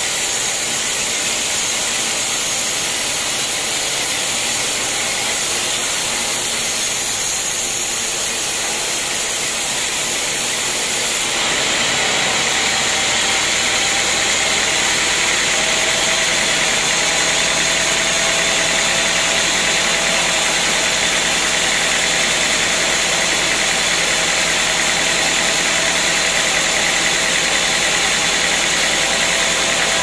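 Band sawmill running steadily while its vertical blade cuts through a teak beam: a continuous whirr of motor and blade. About a third of the way in the sound shifts and gets a little louder, with a low steady hum underneath.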